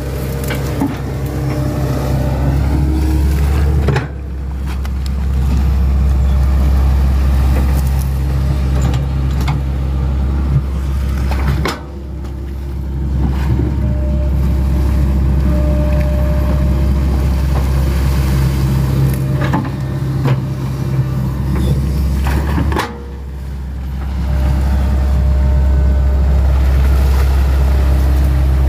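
Hitachi 110 hydraulic excavator's diesel engine running under digging load, with occasional knocks. The engine sound drops suddenly three times and climbs back each time.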